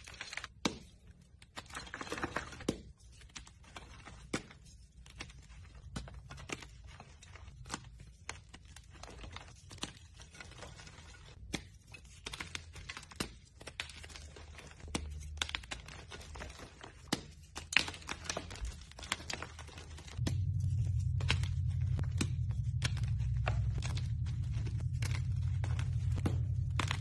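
Hands crushing blocks of dyed reformed gym chalk: a run of irregular crisp crunches and crumbles as pieces break off and powder is squeezed between the fingers. About two-thirds of the way through, a steady low hum comes in underneath and stays.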